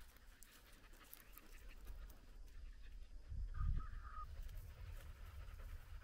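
Quiet outdoor background with a low steady rumble, and one faint, brief high sound about three and a half seconds in.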